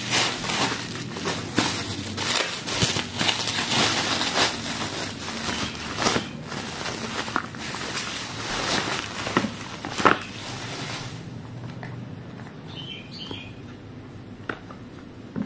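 Plastic packaging crinkling and rustling as a plastic mailer bag and bubble wrap are pulled open and unwrapped by hand, with many sharp crackles. After about eleven seconds it dies down to a few light taps as cardboard boxes are handled.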